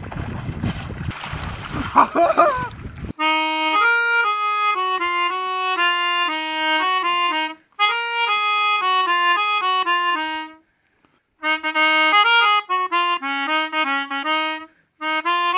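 For about three seconds, wind on the microphone and splashing water from a swimmer. Then a melodica plays a tune note by note, with two short pauses.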